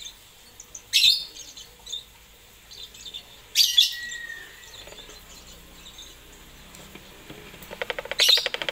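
Lovebird giving loud, sharp chirps about a second in and again near four seconds, with softer chirps between them, then a fast rattling chatter near the end.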